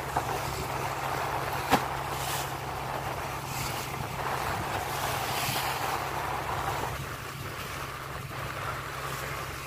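Wooden fishing boat under way: a steady low engine drone under water rushing along the hull and wind on the microphone, with a single knock about two seconds in.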